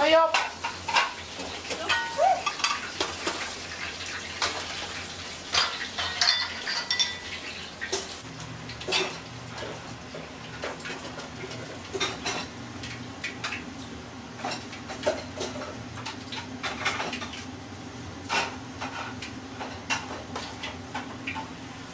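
Metal kitchen utensils clinking and knocking against a stainless steel tray and wire rack as freshly deep-fried chicken wings are lifted out and set down, in many short irregular strikes. A steady low hum comes in about eight seconds in.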